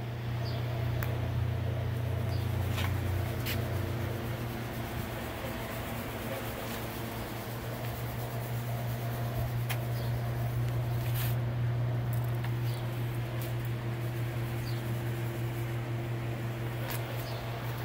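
Wacker Neuson light tower generator running at a steady speed: a constant engine hum with no change in pitch, and a few faint clicks.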